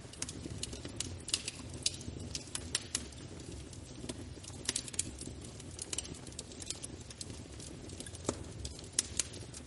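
Wood fire burning in a fireplace: a steady low rumble of the flames with irregular sharp crackles and pops, several a second.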